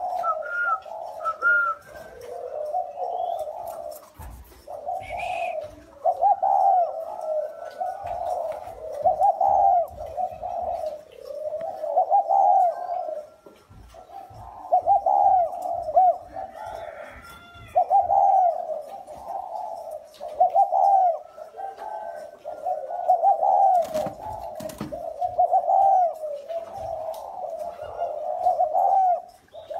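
Caged spotted doves cooing in repeated phrases with hardly a break.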